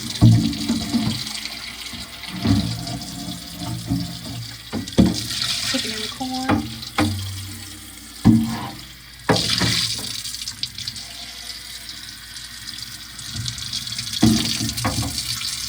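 Water running from a tap into a sink, with repeated knocks and clatters of things being handled under it.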